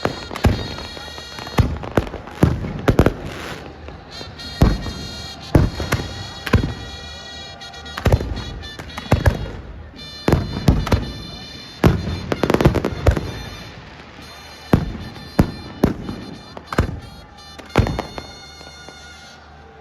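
Fireworks going off: a long, irregular run of sharp bangs and cracks, sometimes several close together, at times in quick clusters.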